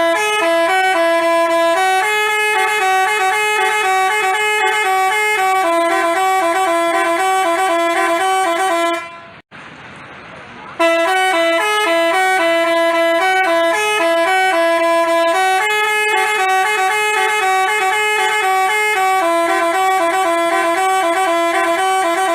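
Basuri telolet bus horn playing a multi-note tune. The melody breaks off about nine seconds in and starts over after a pause of a second or so.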